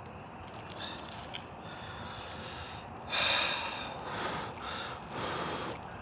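A person's breathy exhales or sniffs, the loudest about three seconds in, followed by a couple of softer ones over a steady hiss.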